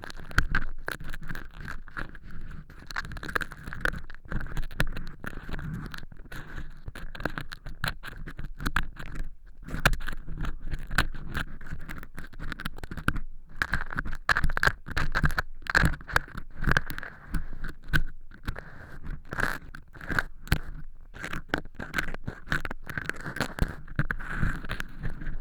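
Ear pick scraping through dry, crunchy fake earwax made of cork chips inside a silicone ear model: a dense, irregular run of crackles and scratches, broken by a few brief pauses.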